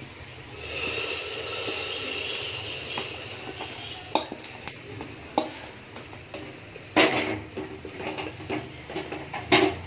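Hot oil tempering sizzling for a couple of seconds as it meets the curry, starting about half a second in, then a metal spoon stirring and clinking against the pots, with several sharp knocks, the loudest near the end.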